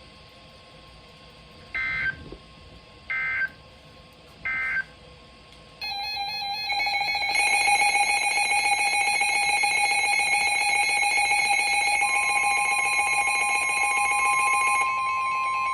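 Emergency Alert System header: three short bursts of data tones about a second and a half apart. About six seconds in, the long steady attention tone begins, with a further tone joining about halfway through. It signals that a new alert, here a severe thunderstorm warning, is about to be read.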